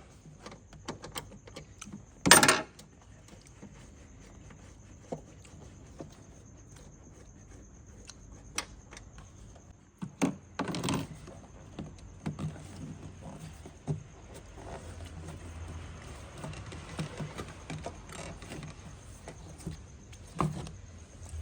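Knocks and clunks from a car's front suspension: a few loud ones, about two seconds in, near the middle and near the end, among lighter ticks. The mechanic puts the knocking down to a worn upper strut mount.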